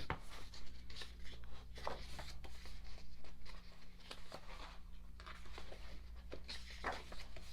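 Paper handling: photobook pages being turned and rustled, in irregular light crinkles and brushes over a steady low hum.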